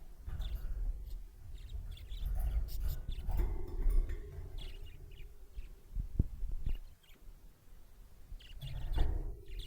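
Budgies chirping in short, scattered calls over a continuous low rumble.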